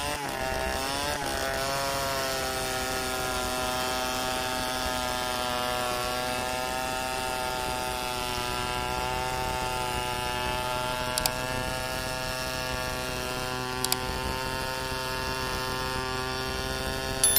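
Two-stroke chainsaw ripping a log lengthwise in a freehand milling cut, the engine held under load at high revs. The revs waver for the first second or two, then hold steady, with a few sharp clicks near the end.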